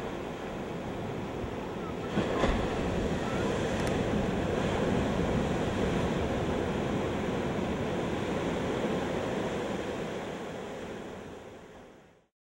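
Ocean surf washing onto a sandy beach, a steady rushing wash that swells and then fades out near the end. A single sharp knock about two and a half seconds in.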